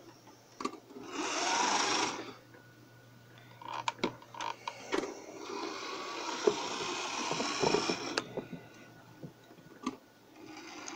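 Piko BR 80 HO-scale model steam locomotive, freshly serviced, whirring as its small electric motor and gears drive it along the track, with sharp clicks from the wheels and from handling as it is set back on the rails. There is a short whir about a second in, then a longer run from about four to eight seconds.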